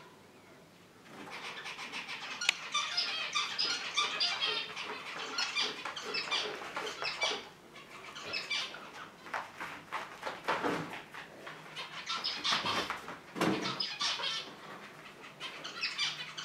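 Dogs' claws clicking and scrabbling on a laminate floor in quick scattered ticks, with a couple of louder knocks about ten and thirteen seconds in.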